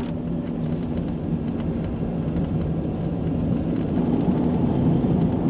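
Jeep Cherokee on a test drive, heard from inside the cab: a steady low rumble of engine and road noise.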